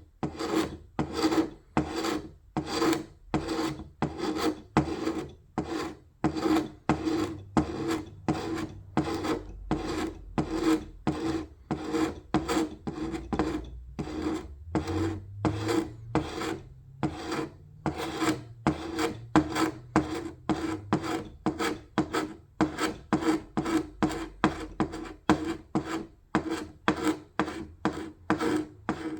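Steady back-and-forth hand strokes on painted wood, taking off old paint and finish, at about two strokes a second.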